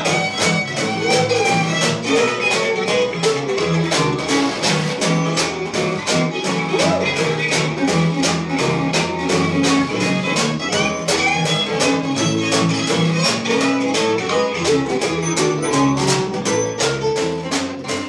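Live acoustic swing band playing: a bowed fiddle over upright bass, with a steady beat of about two strokes a second.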